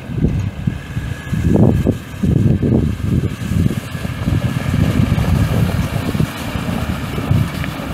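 6.4L V8 turbo diesel engine of a 2009 Ford F450 Super Duty running, with wind buffeting the microphone.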